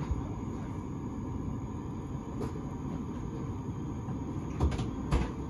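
Steady low rumble inside a standing S-Bahn carriage, with a few short knocks, two of them near the end.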